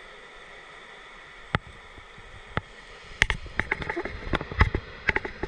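Loaded freight wagons of a pulp train rolling past, heard as a steady hiss with sharp metallic clicks and knocks. The clicks come singly at first, then thick and irregular from about three seconds in.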